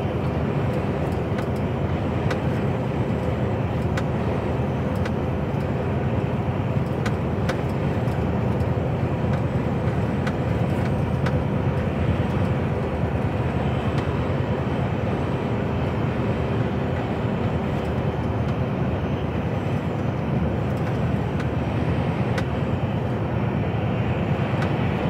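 Steady engine and road noise inside the cab of an HGV container lorry cruising at speed: a deep, even rumble with a faint steady hum over it and the odd faint tick.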